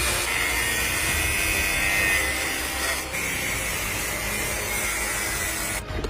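A tool cutting or grinding continuously with a steady whine, dipping briefly about three seconds in and stopping abruptly shortly before the end.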